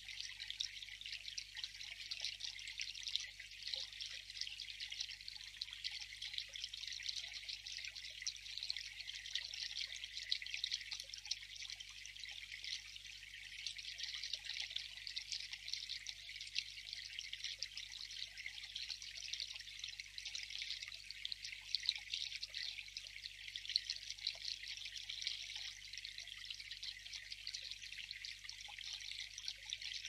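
A garden water feature: a thin stream of water falling from a wooden trough into a small basin, trickling steadily without a break.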